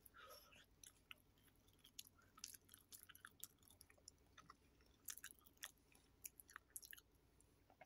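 Faint chewing of soft cooked saba banana: irregular wet mouth clicks and smacks.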